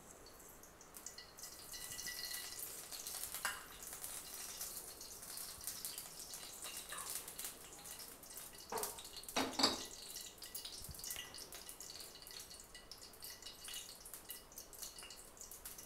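Cooking oil in a hot kadai crackling and ticking faintly as it heats, just after being poured in, with a couple of louder clicks about nine and ten seconds in.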